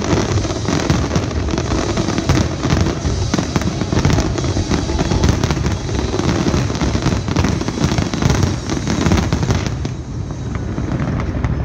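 Dense barrage of aerial firework shells bursting in rapid, overlapping bangs and crackle over a continuous low rumble, thinning a little near the end.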